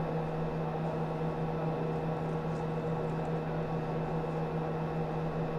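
Steady hum inside the Soyuz MS-09 capsule in powered flight on its second stage: one low tone and a fainter higher one under an even hiss, with no change.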